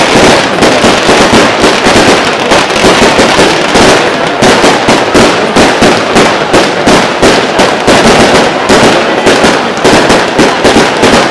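Aerial fireworks display: a dense, unbroken barrage of loud bangs and crackling shell bursts, several a second.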